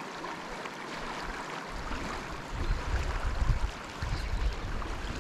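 Fast river current rushing over rocks and slabs, a steady hiss of moving water. A low rumble joins it about two seconds in.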